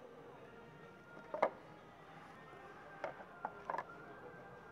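A tablet being handled on a bamboo tablet stand: one sharp knock about a second and a half in, then a few lighter clicks near the end, over faint shop room hum.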